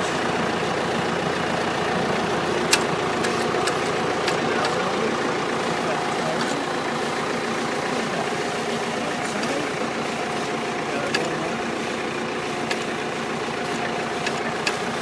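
Tractor engine running steadily while it pulls a Rain-Flo 2550 plastic mulch layer laying mulch and drip tape. A few sharp clicks sound over it, the loudest a little under three seconds in.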